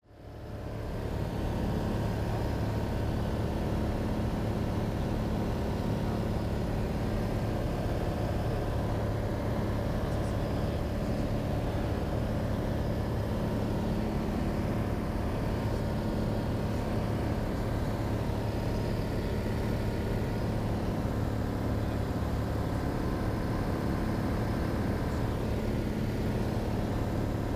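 Cessna 182's piston engine and propeller droning steadily in cruise, heard from inside the cabin. The sound fades in over the first second.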